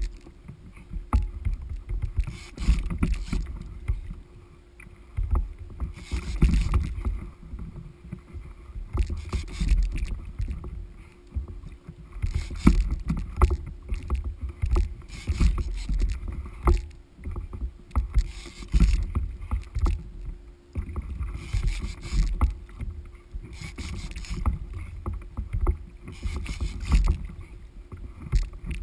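Sea water slapping and splashing against a fishing kayak's hull as it rocks on choppy swell, a hissing splash every two to three seconds over a constant low wind rumble on the microphone.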